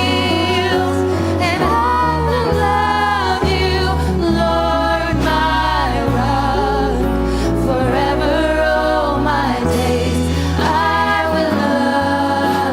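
Worship music: a group of singers with sustained bass notes underneath.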